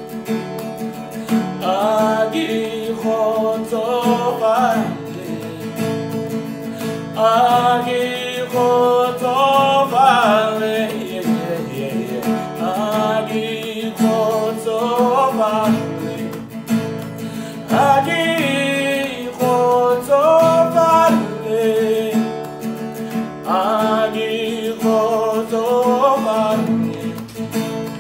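A man singing and playing his own acoustic guitar. The sung phrases last a few seconds, with short breaks between them, over steady guitar.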